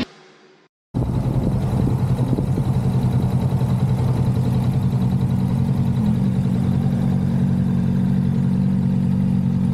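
Kawasaki Vulcan S 650 parallel-twin motorcycle engine running steadily at an even pitch, starting abruptly about a second in.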